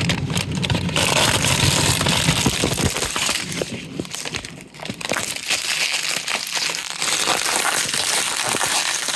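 Packaging rustling and crinkling, with many small crackles, as food ingredients are picked up and handled.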